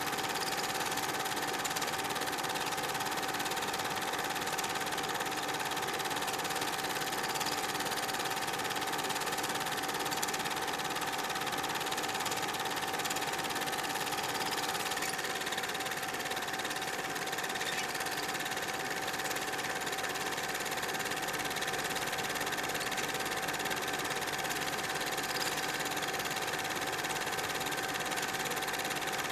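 Super 8 film projector running: a steady mechanical whir with a constant hum tone from its motor and film transport.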